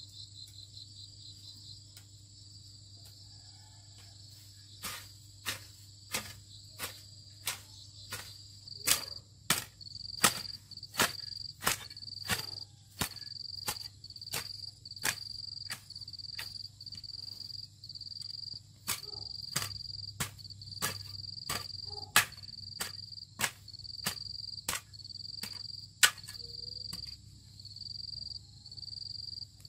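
A hand hoe chopping into soil with sharp strikes, about one and a half a second, starting about five seconds in. Insects chirp steadily in a fast pulsing rhythm underneath.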